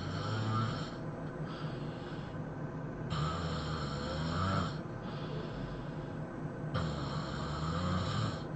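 A person snoring loudly in sleep: loud snores come about every three and a half seconds, each with a low rumble, and a softer breath comes between them.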